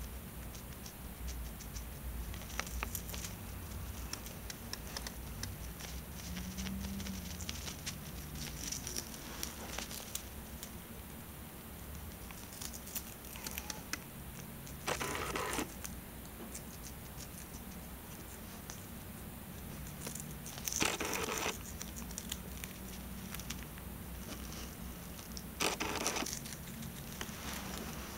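Hamster gnawing and chewing a crisp bok choy stalk: a run of small, quick crunching clicks, with three louder bursts about a second long in the second half.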